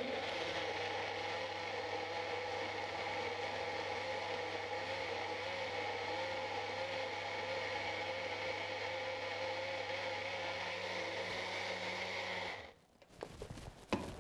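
Magic Bullet compact blender motor running steadily, blending green bananas with coconut milk into a thick porridge mixture. It stops abruptly about a second and a half before the end, followed by a few light knocks.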